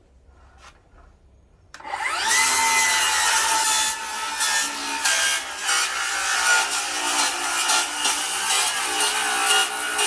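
Cordless rear-handle circular saw with a 24-tooth carbide framing blade: near silence, then about two seconds in the saw starts with a quickly rising whine and spins freely, and from about four seconds it cuts into treated lumber full of screws and nails with a rough, uneven grinding. The blade is near failure, its carbide teeth stripping away.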